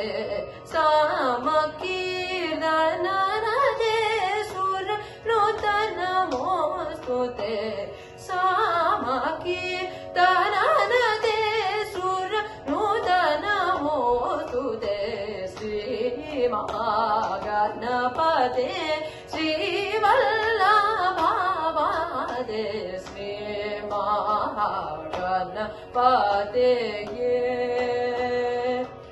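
A young male voice singing a Carnatic composition in raga Abhogi set to khanda chapu tala, the melody gliding and bending through long ornamented phrases over a steady drone.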